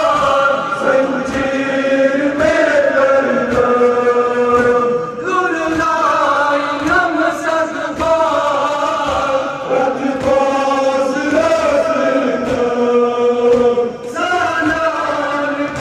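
Many men chanting a Kashmiri Muharram nohwa together in long sung lines, with steady thumps of chest-beating (matam) keeping the beat a little more often than once a second.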